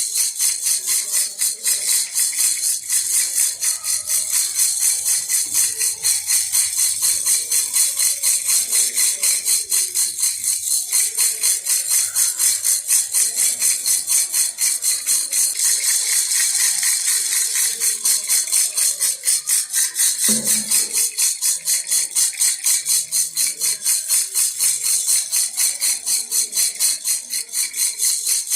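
A baby rattle toy shaken continuously in a fast, even rhythm of about four or five shakes a second, its beads giving a bright, hissy rattle.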